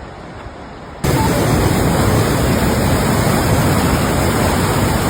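Steady roar of a large waterfall, cutting in abruptly and loud about a second in, after a quieter rush of water.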